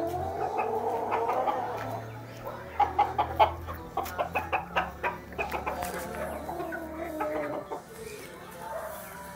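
Domestic chickens clucking and calling, with long drawn-out calls near the start and again later on. A run of quick sharp taps, the loudest sounds, comes in the middle.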